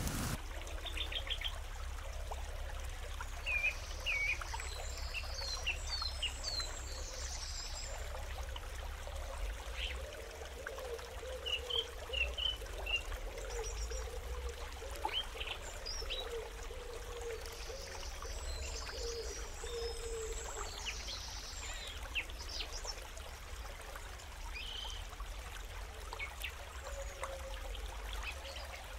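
Outdoor ambience: a steady trickling hiss, with small birds chirping at irregular intervals throughout.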